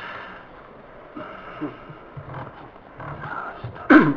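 Faint, indistinct voices in a lecture hall, then a single loud, brief bump on the microphone near the end as it is handled.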